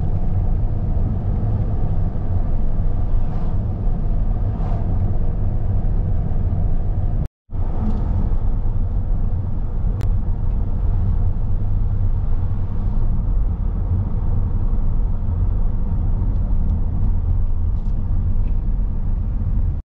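Steady low rumble of road and engine noise inside a moving car, broken by a brief total silence about seven seconds in and again at the very end.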